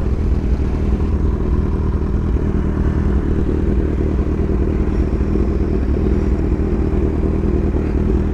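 Inline-four sport motorcycle engine running at a steady speed, a loud, unchanging exhaust note with no revving.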